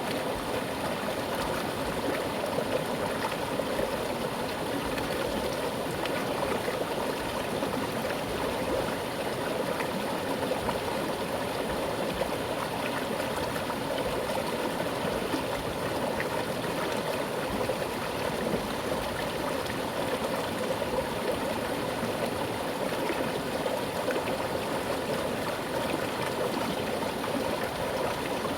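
Mountain river flowing with a strong current over rocks, a steady rushing and gurgling of water.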